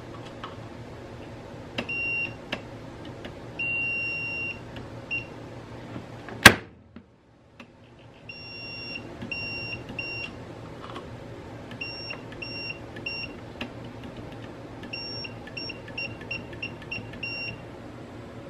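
Multimeter continuity beeper sounding as test probes touch outlet and switch terminals: short, steady, high beeps, some held longer, coming in irregular bursts that grow quick and choppy near the end. A single loud sharp click comes about six and a half seconds in.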